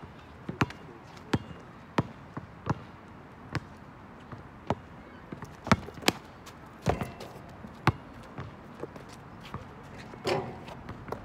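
Basketball bouncing on an asphalt court, sharp bounces at an uneven pace as a player dribbles, mixed with footsteps and sneaker scuffs on the pavement.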